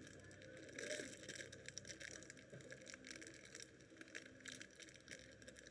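Faint handling noises while unboxing, scattered light clicks and rustles of packaging over a low background hum.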